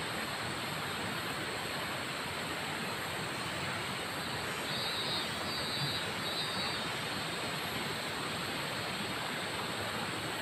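Steady rushing noise of flowing river water, even throughout, with a brief higher hiss about halfway through.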